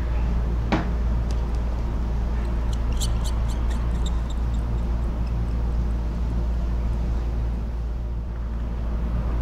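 Table tennis ball being struck and bouncing during a rally: a single sharp click about a second in, then a quick run of sharp clicks around three seconds in, over a steady low hum and the even murmur of the arena.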